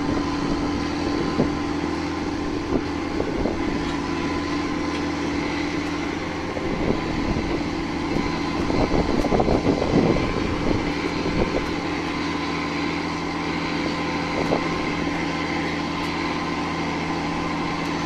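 A large farm tractor's diesel engine runs steadily as it pulls a three-point-hitch cable plough, a blade that slices through stony ground to lay underground cable. Gravel and soil crunch and knock against the blade, most thickly in the middle stretch.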